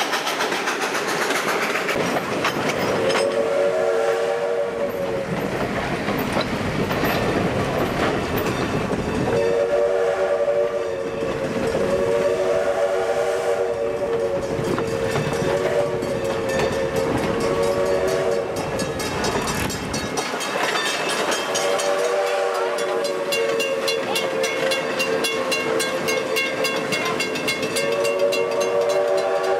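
Steam locomotive whistle sounding a chord of several notes in a series of long blasts a few seconds apart, the signal for road crossings. Under it the coaches' wheels rumble and clack on the rails.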